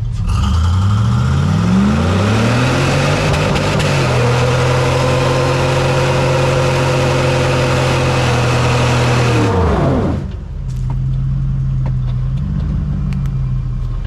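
Jeep Wrangler TJ engine revving up over about four seconds and held at high revs with a rear tyre spinning in the mud, smoking, then let off about ten seconds in and dropping back to a low rev, with a brief small rise near the end.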